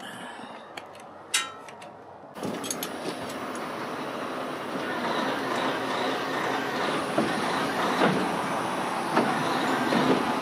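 A vehicle running and moving, a steady rumbling road-and-engine noise with scattered knocks and rattles. The noise comes in suddenly a couple of seconds in, after a few light clicks.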